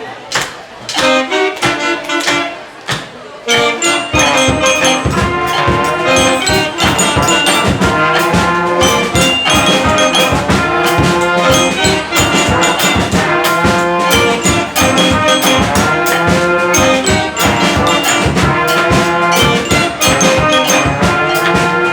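A children's school band playing a piece led by brass, trumpets and trombones to the fore, over a steady beat. A lighter passage opens, and the full band comes in about four seconds in.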